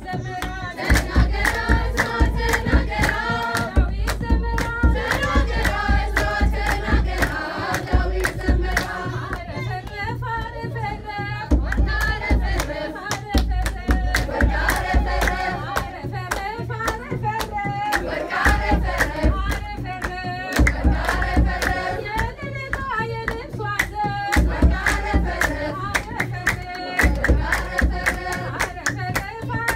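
A group of women singing an Ethiopian Orthodox hymn (mezmur) together, with a kebero drum beating heavy, repeated strokes under the voices and steady hand clapping throughout.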